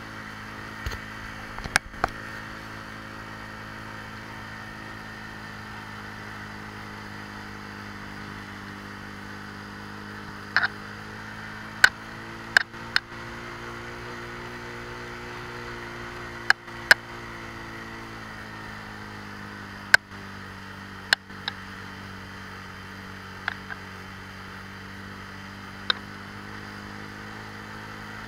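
Motorcycle engine running at a steady cruise, its pitch rising a little and settling back about halfway through. Sharp knocks sound every few seconds, the loudest around 12 and 20 seconds in.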